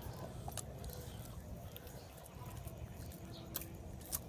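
Howler monkeys chewing biscuits, with scattered sharp lip-smacking clicks over a low steady background rumble. The lip-smacking is a sign that the monkeys are content with their food.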